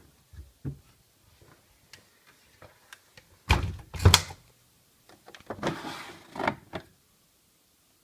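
Laundry pushed into a front-loading washing machine's drum with soft thumps, then the plastic porthole door of the Bosch Maxx washer slammed shut and latched with two loud knocks about three and a half seconds in. A second or so later a plastic scraping slide: the detergent drawer being pulled open.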